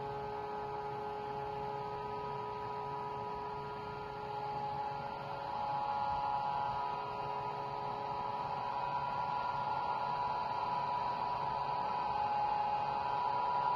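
Vibratory stress relief exciter motor clamped to a welded steel plate, running and shaking the plate to relieve its welding stresses, with a steady hum of several tones. The hum grows louder about five seconds in.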